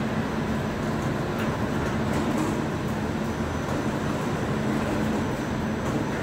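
Steady hum and rumble of running food-processing machinery on a frying line, with a low steady tone.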